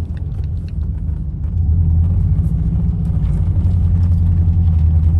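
Subaru Impreza WRX's flat-four engine and road noise while driving at speed: a steady low rumble that gets louder about a second and a half in.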